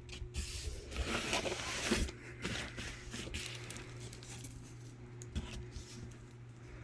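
Rustling and scraping of a firework case's cardboard packaging being handled, busiest in the first couple of seconds and then sparser, over a steady low hum.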